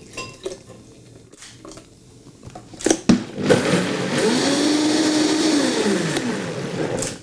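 Vitamix blender re-blending a thick banana and almond-milk smoothie. After a quiet stretch and a couple of knocks about three seconds in, the motor starts with a rising whine, runs loudly for about three seconds, then winds down near the end.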